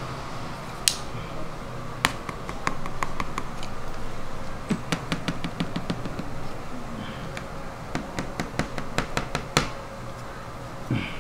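Flat scraper clicking and tapping on a galvanized metal sheet as hardened sugar-painting figures are pried loose: irregular sharp clicks, sparse at first, then several a second, with a loud click about a second in and another near the end.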